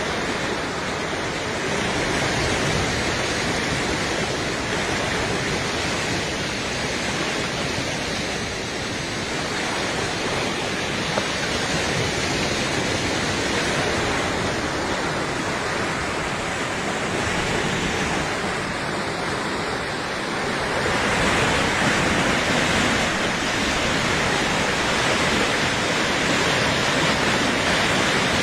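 Steady rush of water pouring over a river waterfall, a dense even roar that swells slightly about two-thirds of the way through.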